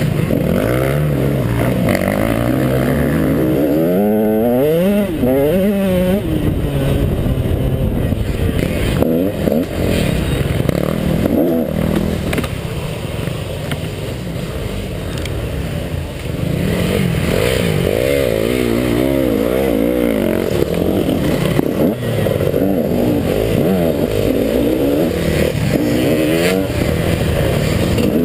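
KTM 150 XC two-stroke dirt bike engine revving up and falling off again and again as it is ridden hard over rough ground, easing off for a few seconds around the middle, with clatter from the bike.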